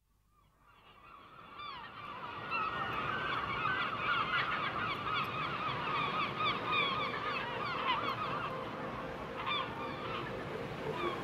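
A large flock of birds calling all at once, a dense chorus of short overlapping calls, fading up from silence over the first couple of seconds.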